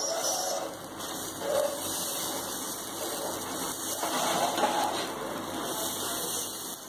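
Dosa batter sizzling on a hot iron tawa while a steel spatula spreads it in circles, scraping over the pan.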